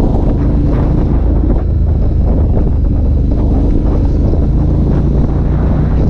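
Ducati Multistrada 1200S DVT's Testastretta V-twin, breathing through a Termignoni racing exhaust, running steadily on the road. Heavy wind noise on the microphone lies over it.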